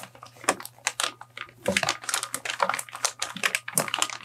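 Thick plastic bag wrapping a speaker, crinkling and crackling as hands grip and shift it inside a wooden crate: a rapid, irregular run of crackles, sparse at first and dense from about halfway in.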